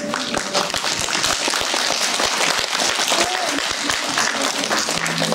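Audience applauding: dense, steady clapping throughout, with music starting up near the end.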